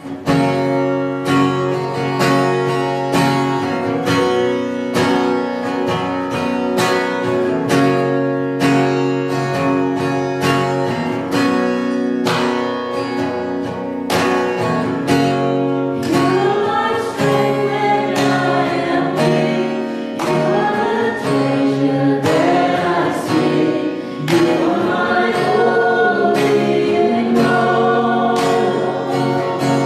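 Acoustic guitar strummed in a steady rhythm, opening a worship song; a woman's voice comes in singing about halfway through.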